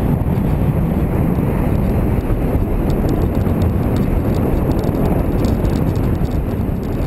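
Riding a motorcycle: wind buffeting the camera microphone over a steady low engine and road rumble. From about three seconds in, a fine rapid rattling joins in as the bike runs over the cobbled street.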